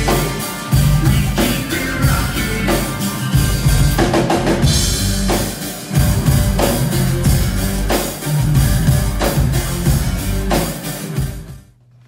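Music with a strong drum-kit beat, kick and snare prominent over bass, stopping shortly before the end.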